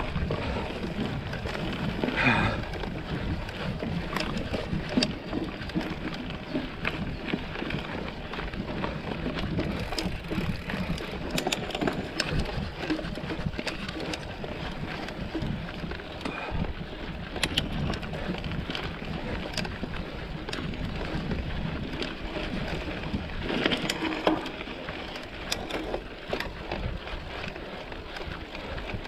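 Mountain bike ridden over a rough trail: steady tyre and wind noise with frequent rattles and knocks from the bike, and heavier jolts about two seconds in and again near the end.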